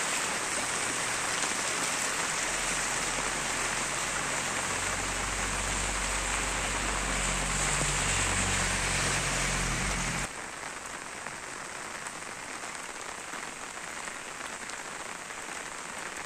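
Steady rain hiss on a wet road, with the engines of passing vehicles humming underneath for the first ten seconds. About ten seconds in, the sound drops abruptly to a quieter, even hiss of rain and water.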